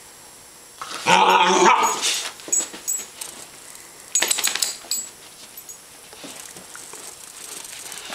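A puppy making play noises: a loud growling, barking outburst about a second in, then a shorter burst of sharp sounds around four seconds in.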